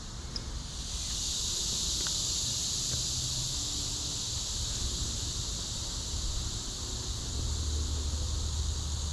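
Steady high-pitched insect chorus buzzing, louder from about a second in, over a low rumble.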